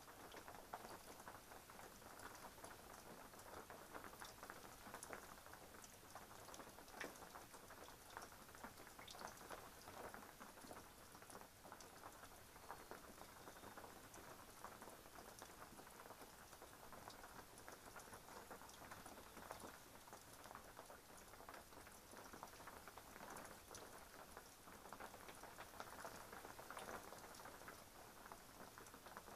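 Faint steady rain falling, with many small drops pattering irregularly.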